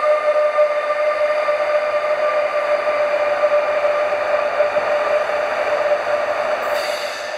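Siemens GTO traction inverter of an ÖBB Class 1016 Taurus electric locomotive, the 'Doremi' inverter, whining on a steady tone as the locomotive hauls its train away from the platform, over the growing noise of wheels on the rails. A brief hiss comes near the end.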